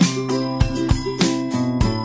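Background music: an upbeat tune with a steady beat and held keyboard-like notes.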